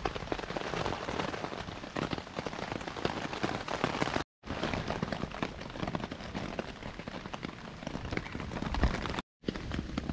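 Rain falling on a tarp overhead: a dense, steady patter of many small drops, broken by two brief gaps.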